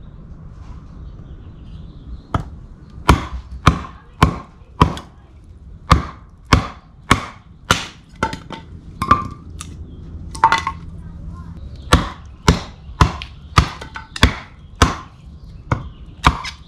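A large camp knife, the Dark Timber Knives Devil's Horn, chopping wood into smaller pieces. The sharp strikes begin about two seconds in and come about two a second, in runs with short pauses between them.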